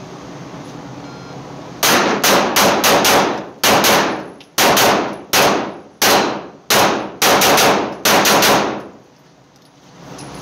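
Arex Delta Gen 2L 9mm pistol firing a fast string of shots in quick pairs and threes over about seven seconds, each report ringing on in an indoor range.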